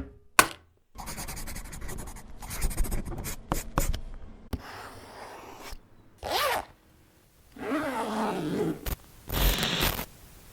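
A string of unrelated short edited sound effects: a short pop, then a few seconds of rapid rasping, then several brief effects with gliding pitch, a click, and a final noisy burst.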